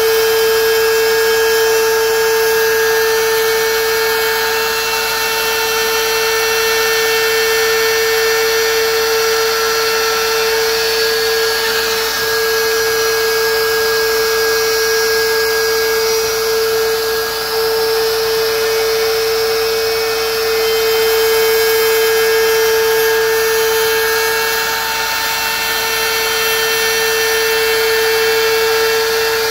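DeWalt plunge router running steadily at full speed with a constant high whine, routing slots into a wooden panel.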